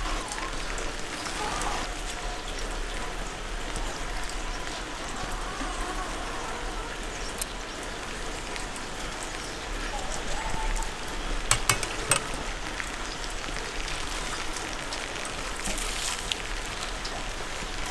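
Light rain falling steadily on paving and a table, a constant patter. About two-thirds of the way through come a few sharp metallic clinks as grilled meat is pulled off steel skewers.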